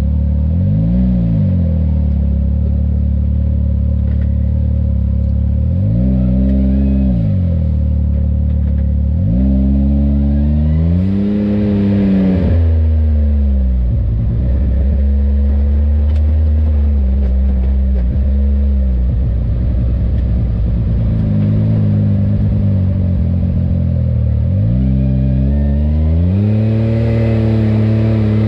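Side-by-side UTV engine running under the rider, its revs rising and falling in several throttle surges with steadier running between them.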